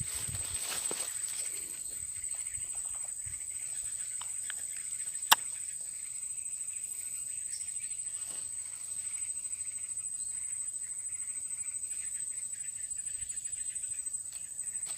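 Insects droning steadily at a high pitch with a fast, fine pulse, over faint outdoor background. A single sharp click about five seconds in.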